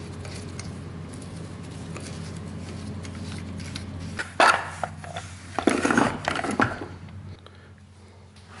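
Tools and parts handled on a workbench: a short clatter about four seconds in and a longer rattle around six seconds, over a steady low hum.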